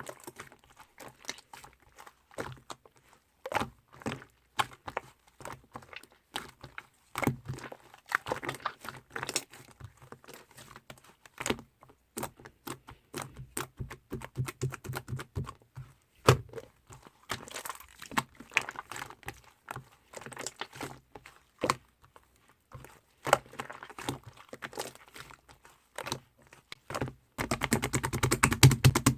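Irregular sharp clicks and taps, with a few short crackly stretches, ending in a fast run of rapid clicks about 27 seconds in.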